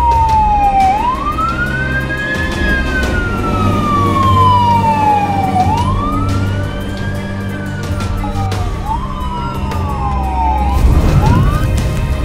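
Fire engine siren wailing in long sweeps, each rising quickly and falling slowly, about three times. A second sweep overlaps it near the end.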